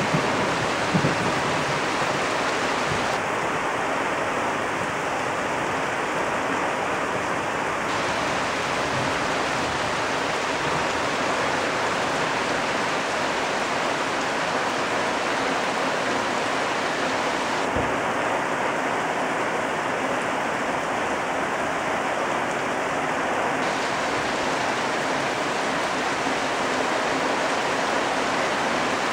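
Heavy rain pouring steadily, a dense even hiss of drops falling on leaves and waterlogged ground.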